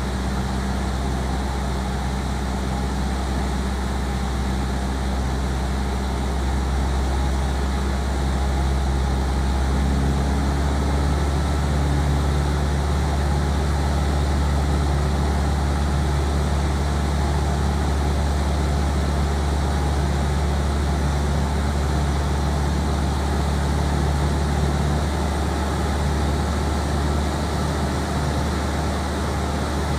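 Single-engine light aircraft in flight: the steady drone of its engine and propeller, whose note shifts slightly about ten seconds in.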